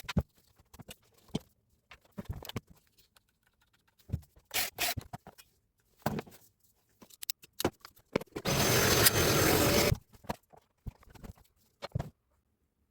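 Parts and tools clicking, knocking and scraping as a Hilti TE60 rotary hammer is handled on the bench, with a loud, steady hiss lasting about a second and a half past the middle.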